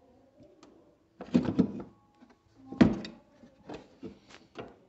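Knocks and clicks of hands and an Allen key working a screw into a scooter windshield's mounting bracket: a short clatter about a second in, the loudest knock near three seconds, then a few lighter clicks.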